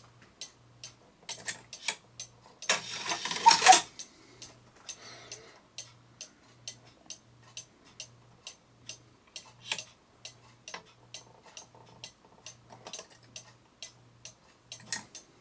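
Cuckoo clock ticking steadily, about three ticks a second. About three seconds in comes a brief, louder rustling scrape lasting about a second.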